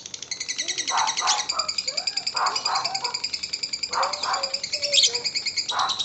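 Lovebird singing its long 'ngekek' chatter: a fast, even run of high-pitched notes that goes on without a break. Lower, separate calls break in several times over it.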